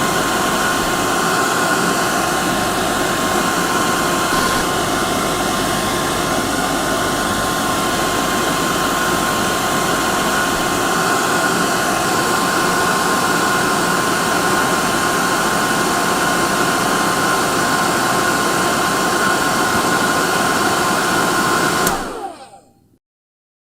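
Hair dryer running steadily, a dense airy rush with a steady whine on top, used as white noise. It switches off about 22 seconds in and winds down to silence within a second.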